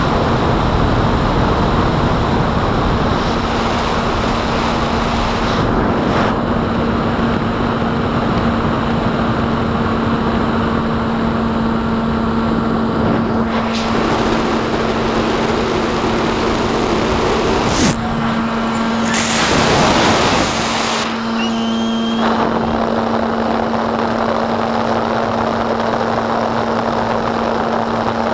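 SkyHunter RC plane's electric pusher motor and propeller running at a steady cruise, a constant hum over loud wind rush across the onboard camera. The hum fades about halfway through, a louder rush of wind comes about two-thirds in, and then the hum returns.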